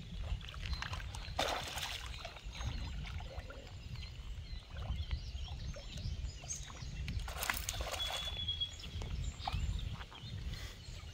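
River water sloshing and splashing at the bank as a fish swirls at the surface, with two brief louder splashes about one and a half and seven and a half seconds in, over a steady low rumble.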